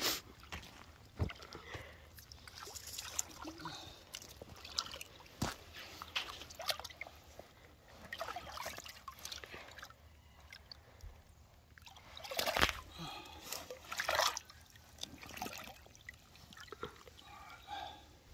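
Water sloshing and trickling, with scattered small knocks and clicks; louder for a moment about two-thirds of the way through.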